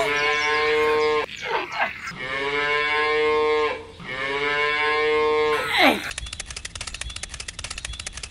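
Cattle mooing: three long, level moos of about a second and a half each, with short falling sweeps between them. From about six seconds in, a fast, even ticking takes over.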